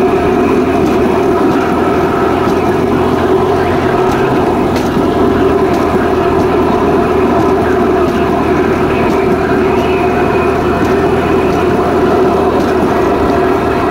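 Small motorized rail vehicle running along the track: a steady motor drone mixed with the rolling noise of wheels on the rails, with faint clicks here and there. The low hum shifts slightly in pitch about four seconds in.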